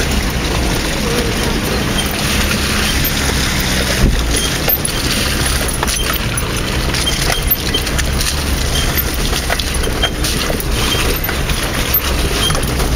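Vauxhall Frontera Sport 4x4 heard from inside the cabin, its engine running with a steady low drone while it drives over a rough, wet off-road track. The body and contents rattle and knock over the bumps, with a louder thump about 4 seconds in.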